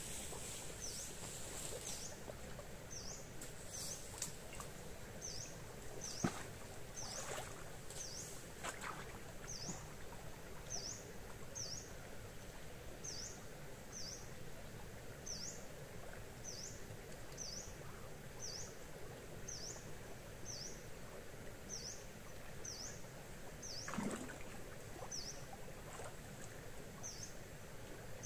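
Outdoor ambience: a bird repeating a short, high, falling chirp about once a second over a steady background hiss. A few faint clicks come early, and one louder falling swish near the end.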